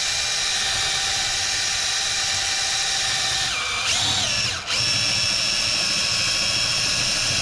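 Cordless DeWalt drill running a step bit into a thin aluminum tube, a steady motor whine. About three and a half seconds in the pitch sags, the drill stops for a moment, then it spins up again and runs steady. The step bit is dull and barely cuts the aluminum.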